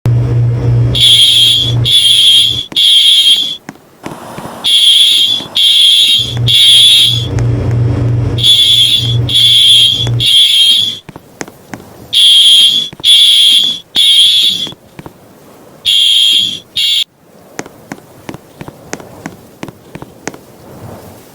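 Fire alarm horn sounding the temporal-three evacuation pattern: three short, high-pitched blasts, a pause, then three more, repeated. It stops partway through the fifth group, after two blasts, about 17 seconds in.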